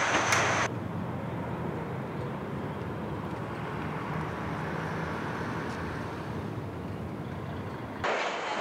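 Busy assembly-plant noise with a few sharp clicks, which cuts off under a second in to a steady, muffled outdoor hum with a faint low drone. Busy factory-floor noise returns abruptly near the end.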